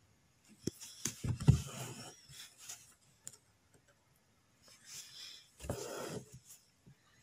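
Embroidery needle and silk thread worked through taut fabric: a few sharp taps and clicks in the first two seconds, then a rustling scrape as the thread is drawn through, a pause, and a second longer pull near the end.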